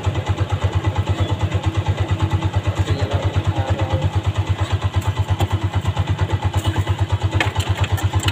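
A small engine idling with a steady, even pulse of about ten beats a second. A few sharp clicks come near the end.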